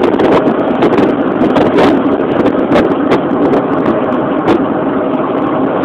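Steady engine and road noise heard from inside a moving vehicle, with scattered sharp clicks and rattles.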